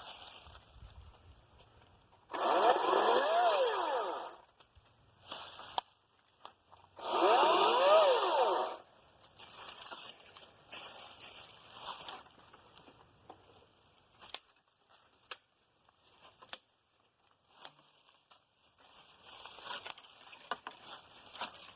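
Ryobi 40V 14-inch battery chainsaw running in two short bursts of about two seconds each, its motor whine rising and then falling as it spins up and winds down. Between the bursts come quieter crackles and rustles of brush and branches.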